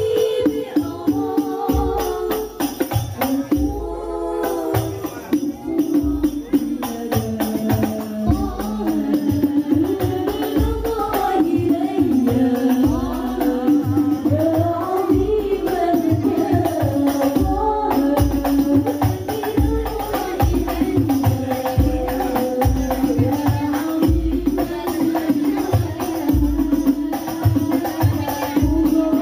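Music: a wavering melody line over a steady low beat and dense percussion.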